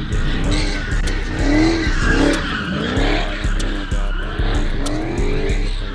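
Dodge Charger doing donuts: the engine revs up and down in repeated swells, about once a second, while the rear tires squeal and skid.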